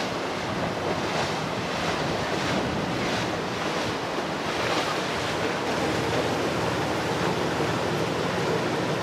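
Water rushing along the hull of a passing Azimut 105 ft motor yacht, with wind on the microphone and a low, steady engine hum underneath.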